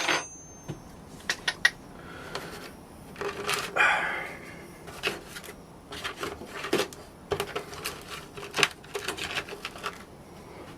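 Light metallic taps and clinks as the fresh sand-cast silver piece is knocked and worked free of its mould, with a short scrape about four seconds in.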